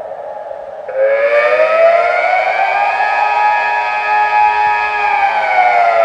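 Delta civil-defence siren sounding the Austrian 'Alarm' signal, a rising and falling wail that means danger and seek shelter. Its tone is low at first, cuts in louder about a second in and rises, holds high for a couple of seconds, then begins to fall near the end.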